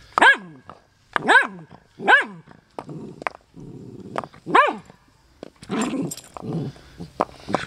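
West Highland White Terrier giving short, high-pitched barks, four in the first five seconds, with low growling between them.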